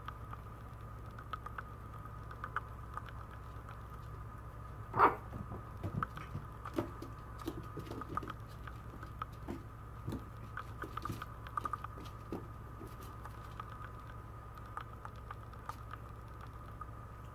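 Maltese puppies play-wrestling on a vinyl floor: scattered light clicks and scuffs of claws and paws as they tumble, with one louder short sound about five seconds in. A steady faint hum runs underneath.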